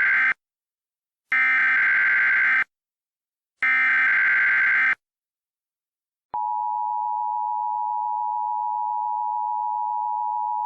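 Emergency Alert System SAME header: the end of one burst and then two more bursts of digital data tones, each a little over a second long. After a short gap, the steady two-tone EAS attention signal starts about six seconds in and holds; it announces that an emergency alert message is about to be broadcast.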